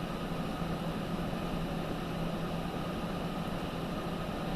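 Steady machine hum with a constant low drone, unchanging throughout.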